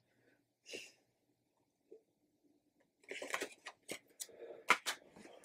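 Faint handling of tarot cards: near silence at first, then soft rustling and a few light clicks from about three seconds in as cards are moved and laid down.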